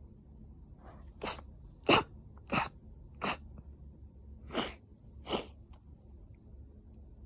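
A woman sneezing six times in quick succession, the first four about two-thirds of a second apart and the last two after a short pause: an allergic rhinitis sneezing fit.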